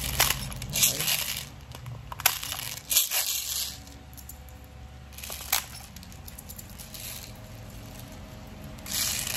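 Plastic 6 mm airsoft BBs being loaded into the KJ Works CZ Shadow 2 gas pistol magazine: several short bursts of clicking and rattling in the first four seconds, a single click about five and a half seconds in, and another burst near the end.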